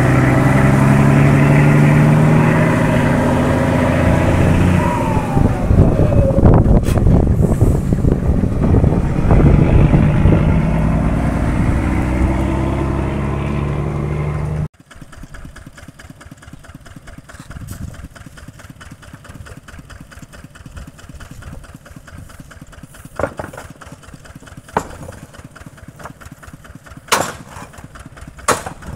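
Engine running loud, its pitch rising and falling with the throttle, then cutting off suddenly about halfway through to a much quieter steady hum with a few sharp knocks near the end.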